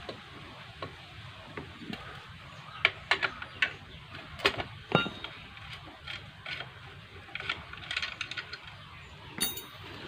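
Irregular metallic clinks and knocks of a spanner and loose metal parts being handled while a scooter's rear wheel and drum brake assembly are unbolted.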